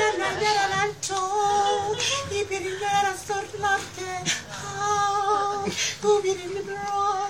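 A high voice singing held, wavering notes in a mock-operatic solo, in phrases of about a second each, over acoustic guitar accompaniment.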